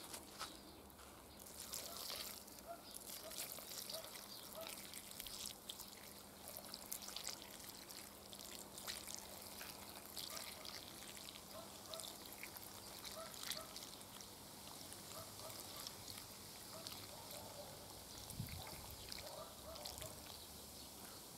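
Light beer trickling in a thin, faint stream from a glass jar onto layered raw vegetables in a cast-iron kazan, the pour picking up about two seconds in.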